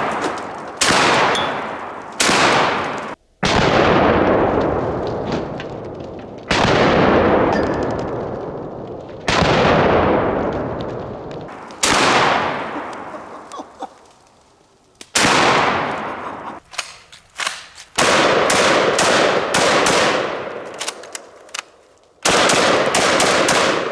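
IWI Tavor TS12 12-gauge bullpup shotgun fired about nine times at a slow, uneven pace. Each shot is followed by a long echo that fades over two or three seconds, and there are a few small clicks between the later shots.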